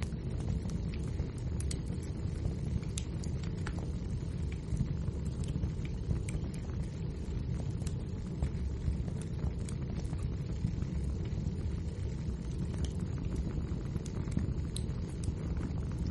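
Wood fire burning in a fireplace: a steady low rumble of flame with scattered crackles and pops from the burning logs.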